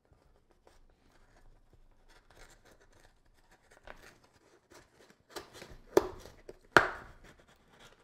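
Cardboard mailing box being torn open by hand: faint rustling at first, then louder tearing of cardboard in the last few seconds, with two sharp cracks about six and seven seconds in.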